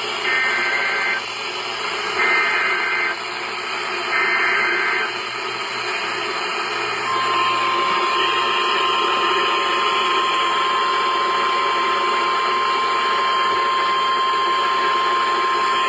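NOAA Weather Radio Emergency Alert System signal over a hissing radio receiver. Three short warbling bursts of the digital SAME header data come first, each about a second long. About seven seconds in comes the single steady 1050 Hz Weather Radio warning alarm tone, held for about nine seconds and then cut off: the signal that a new warning is about to be read.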